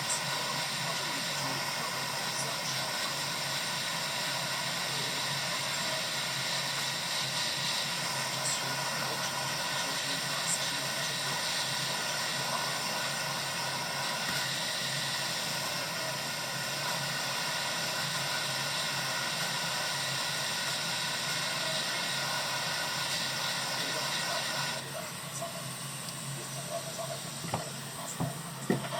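Steady, even hiss that drops off sharply about 25 seconds in, followed by a few faint clicks near the end.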